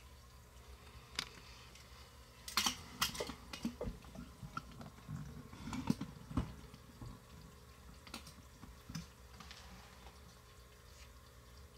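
Irregular light clicks and knocks of handling, most of them bunched between about two and six seconds in, then a few scattered ones.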